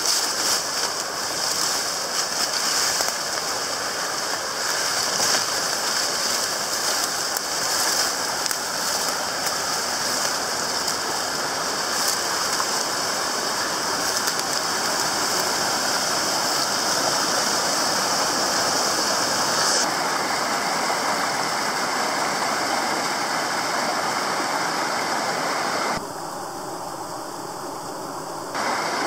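Steady rush of a mountain headwater stream tumbling over rocks and small cascades. In the first half, scattered crackles of leaves and bamboo grass brushing past are heard over it. The rush drops in level for a couple of seconds near the end.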